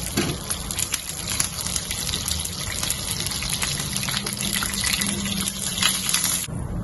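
Peppercorns frying in a little hot oil over the lowest heat: a steady crackling sizzle with many small pops, which cuts off abruptly near the end.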